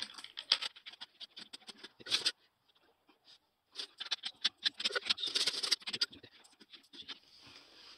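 500-yen coins clicking and clinking against each other and the wooden tabletop as they are slid along and stacked into a pile of ten. The clicks come in quick runs, with a pause of about a second and a half midway.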